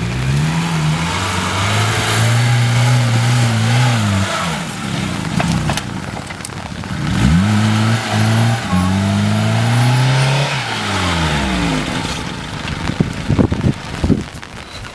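Car engine revving up, holding and dropping away twice, with a brief step in pitch in the second pull. A few sharp knocks near the end.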